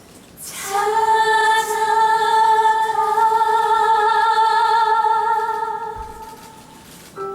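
A woman singing one long held note with a slight vibrato, fading away near the end. New instrumental notes enter just as it dies out.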